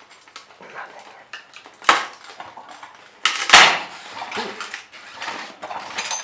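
Harbor Freight manual tire changer being worked against a car tire: light metal clicks and rattles, a sharp knock a little under two seconds in, then a louder, longer bang about three and a half seconds in as the tire's bead breaks loose.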